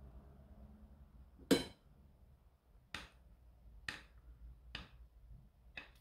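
Glass mixing bowl knocked and tapped as thick cake batter is scraped out of it into a loaf pan: five sharp clinks about a second apart, the first the loudest.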